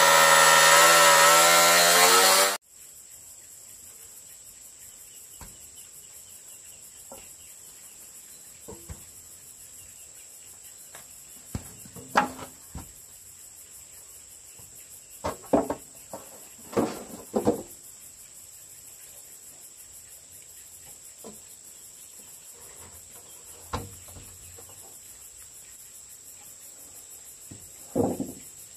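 A chainsaw running, cutting off suddenly about two and a half seconds in. After it, a steady high insect trill carries on, broken by scattered knocks and taps.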